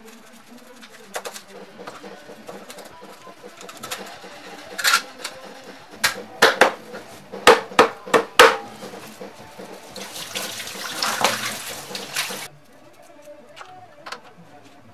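Meat cleaver chopping through fish on a plastic cutting board: a run of sharp chops between about five and eight and a half seconds in. Then tap water runs into a steel sink for about two seconds and cuts off abruptly.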